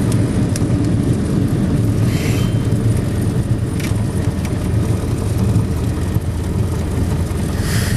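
Light aircraft's engine running steadily, heard from inside the cabin as a continuous low drone, with two brief hissing swells, one about two seconds in and one near the end.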